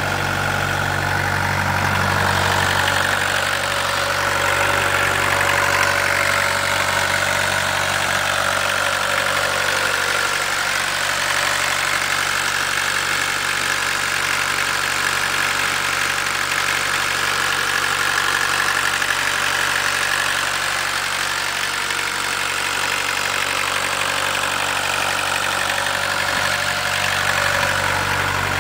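1981 Volkswagen Rabbit's four-cylinder diesel engine idling steadily.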